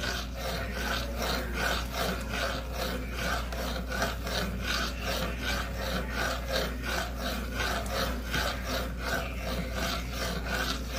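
A spoon stirring thickening ground-kamut porridge in a stainless-steel pot, scraping rhythmically against the pot at about three strokes a second.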